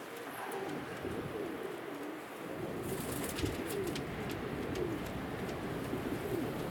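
Altambasi pigeons cooing, a run of low warbling coos one after another, with scattered light ticks from about three seconds in.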